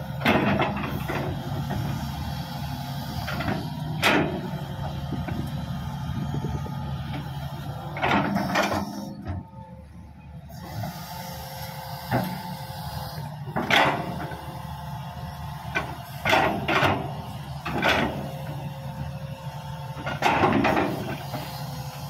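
Heavy diesel engines of a Hitachi 200 excavator and a Caterpillar D6G bulldozer running steadily, with a thin steady whine over the low drone. A sharp knock breaks through every few seconds, about eight in all, with a short lull a little before the middle.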